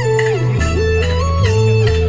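Instrumental dance music: a lead melody moving up and down in steps over long held bass notes that change about every half second to second.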